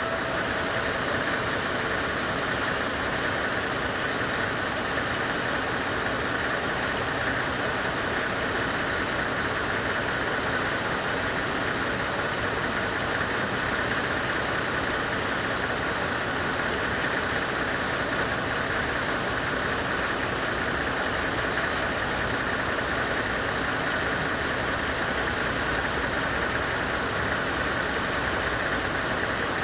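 Vintage diesel locomotive's engine running steadily as the locomotive moves slowly along the track.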